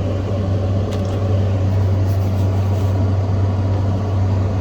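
Steady low mechanical hum of room background noise, with a few faint clicks of small parts being handled about a second and two seconds in.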